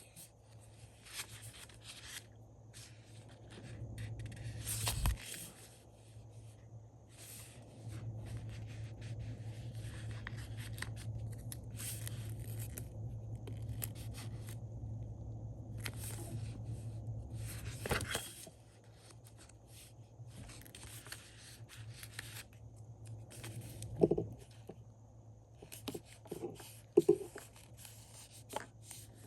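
Stickers being peeled and pressed into a paper planner: scattered rustles, scrapes and small taps of paper and sticker sheets, with a couple of sharper knocks near the end. A low steady hum runs through the middle stretch.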